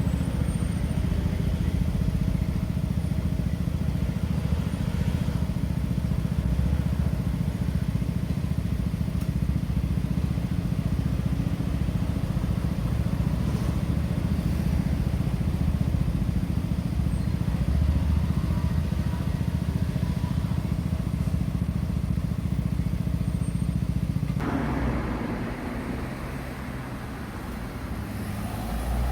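Road traffic at a crossroads, a steady low engine rumble of vehicles. About 24 seconds in it changes abruptly and thins out.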